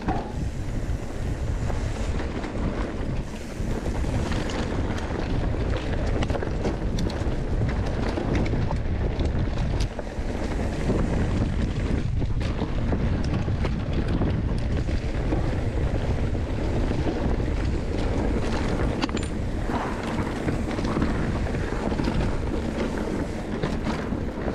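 Wind rushing over the microphone as an Ibis Ripmo mountain bike descends a dry dirt trail, with a steady low rumble of tyres on the ground and frequent short rattles and knocks from the bike over bumps.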